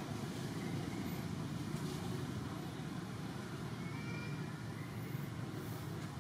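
Steady low rumble of outdoor background noise, with faint brief high chirps now and then.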